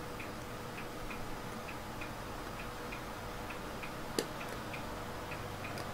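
Faint, even ticking, about three ticks a second, and one sharp click about four seconds in from a thin blade prying at the split plastic case of an Oki DIP RAM chip.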